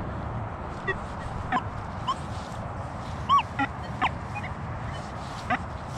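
Birds calling: short calls scattered through, the loudest a little past halfway, over a steady low background noise.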